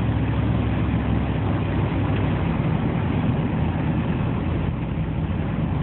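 Four-wheel-drive vehicle driving on a snowy road, heard from inside the cabin: a steady low drone of engine and road noise.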